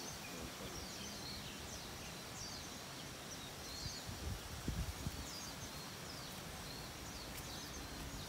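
Small birds chirping, many short high calls scattered throughout, over a steady outdoor hiss, with a few soft low thumps about halfway through.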